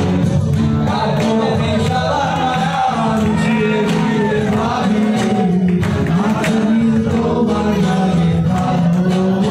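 Live acoustic band playing a song: male vocals over two strummed acoustic guitars, bass guitar and cajon.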